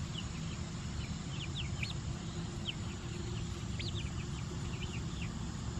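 Young chickens (pullets) peeping: short high chirps, a few each second, scattered at random over a low steady background noise.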